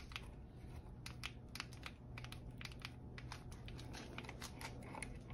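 Quick, light, irregular clicking of a hand tool turning out a Brompton's wedge bolt, several clicks a second.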